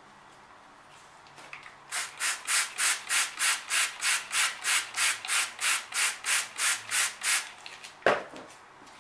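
A wooden stir stick scrapes around a plastic cup as acrylic pour paint is stirred: about eighteen rhythmic scrapes, roughly three a second. A single sharp knock follows about a second later.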